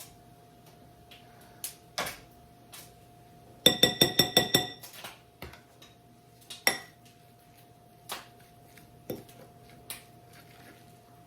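A metal utensil clinking against a dish: a quick run of about seven ringing clinks about four seconds in, with single knocks and taps before and after.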